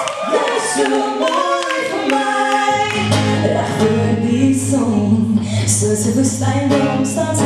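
Live music: a woman singing over acoustic guitar, with a low bass line coming in about three seconds in.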